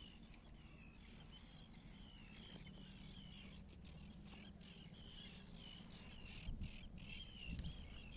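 Birds chirping faintly, many short calls following each other with a dipping pitch. Near the end there are two brief low thumps.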